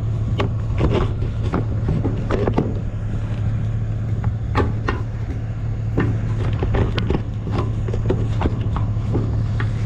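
Cabin sound of a moving vehicle: a steady low engine and road drone, with scattered short rattles and knocks throughout.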